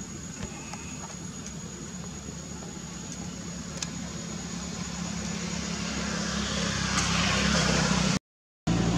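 A motor vehicle's engine hum, steady at first and then growing louder over the last few seconds as it comes closer. The sound cuts out completely for a moment near the end.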